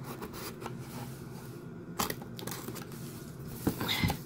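Cardboard poster mailer tube handled and turned over on a wooden table: light rustling and scraping of cardboard, with a sharp knock about two seconds in and a burst of louder scuffing near the end.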